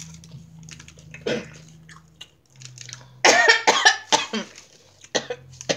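A person coughing: one cough about a second in, a loud fit of several coughs around three to four seconds in, and two more short coughs near the end.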